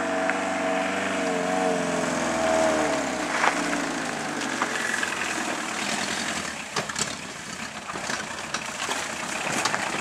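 Peugeot 205 diesel running on waste oil, driving slowly over a rough track. Its engine note eases off after about three seconds, then tyres crunch over loose stones and dirt with scattered clicks as it passes.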